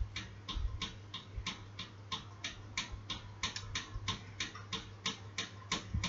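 Fast, fairly even ticking, about three ticks a second, over a steady low hum.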